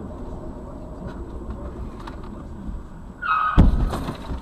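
A car running with steady road noise, then about three seconds in a short high squeal and a sudden loud crash of a collision, followed by a few rattling clicks.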